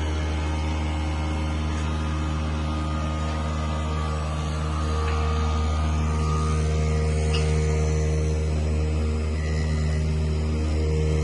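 CNC foam-cutting machine running, a steady low motor hum with several even tones above it, a little louder from about five seconds in.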